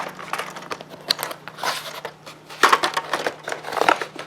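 Toy packaging being pried and torn open: irregular rustling, crinkling and scraping of cardboard, with a low steady hum underneath.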